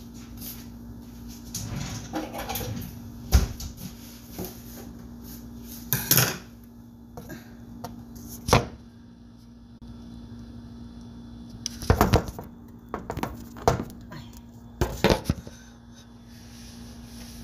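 Several sharp knocks and bumps from a phone camera being handled and set in place on a kitchen counter, over a steady low hum.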